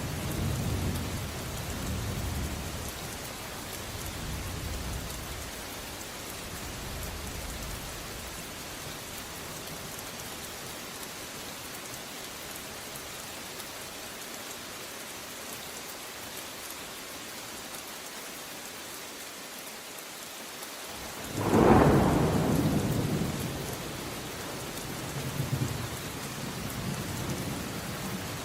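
Steady rainfall with thunder: low rolling rumbles fade out over the first several seconds, then a sudden loud thunderclap breaks about three quarters of the way in and rumbles away over a few seconds, with a softer rumble after it.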